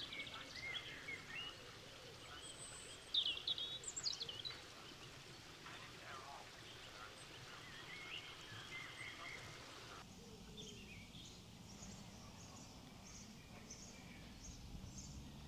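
Wild birds calling and singing: scattered short chirps and trills, loudest around three to four seconds in. About ten seconds in, the background changes abruptly, and from then on a faint high note repeats about twice a second.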